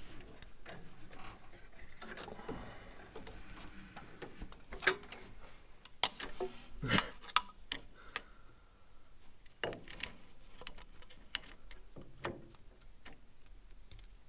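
Irregular metallic clicks, taps and knocks with light rubbing, from hand work freeing the choke cable and linkage of a carburetor under a van. The sharpest knocks fall around the middle.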